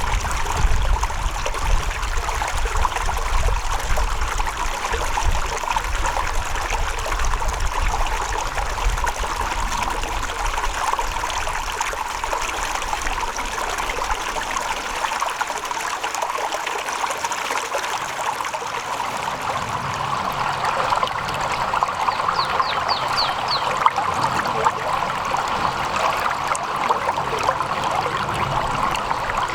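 Water trickling and babbling steadily, as from a small stream, with a low rumble underneath for about the first half.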